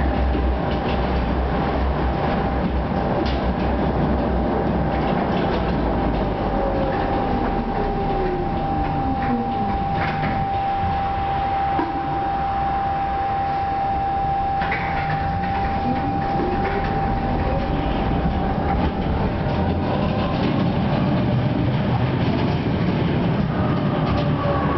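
Interior sound of a Tatra T5C5 tram: its traction motors whine down in pitch as it slows, then whine up again as it picks up speed, over a constant rumble of wheels on rails. A steady high electrical hum runs alongside and stops about three-quarters of the way through, with a few clicks and knocks from the car body.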